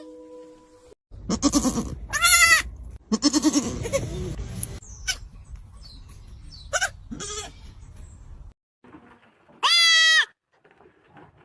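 Baby goats bleating: a string of separate bleats, some short and some drawn out, with a loud high bleat near the end. A low rumble runs under the first several bleats.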